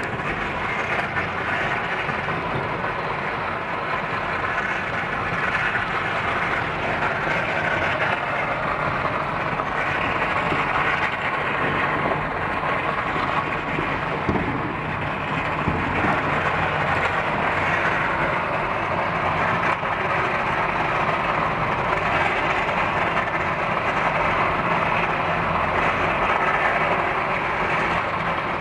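Dense barrage of firecrackers and fireworks going off all over the city, merging into one continuous crackling din with no single bang standing out.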